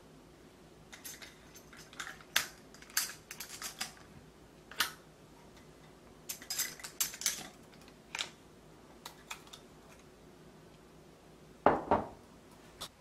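Glass clip-top jars being handled: the metal wire clasps and lids click and clink in scattered bursts, with two louder knocks close together near the end.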